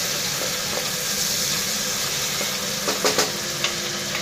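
Onions, garlic paste and chopped tomato sizzling in hot mustard oil in a pressure cooker pot, stirred with a wooden spatula: the masala being fried down. A few sharp knocks, likely the spatula against the pot, come about three seconds in.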